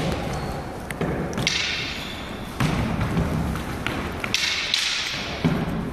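Footsteps thudding and scuffing on a wooden floor during hand sparring, with a few sharp knocks scattered through.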